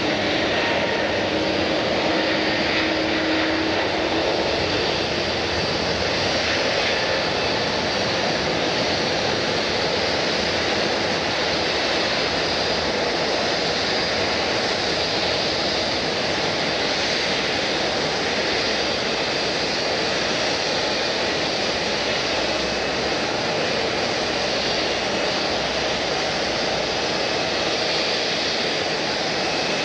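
Airliner jet engines running as a steady, even rushing noise that neither rises nor falls.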